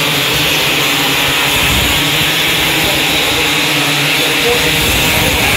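A field of winged 270 micro sprint cars racing around a dirt oval, their engines running loud and steady together.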